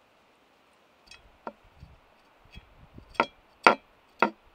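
A kitchen knife cutting a lemon on a wooden cutting board: a run of sharp knocks, faint at first and louder from about three seconds in, roughly two a second.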